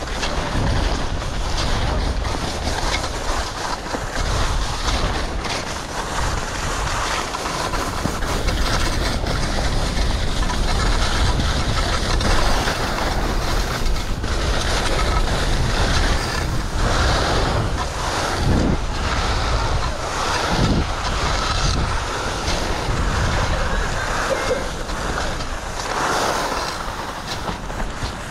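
Wind rushing over an action camera's microphone while skiing, a steady low rumble, with skis scraping over soft snow through a run of turns.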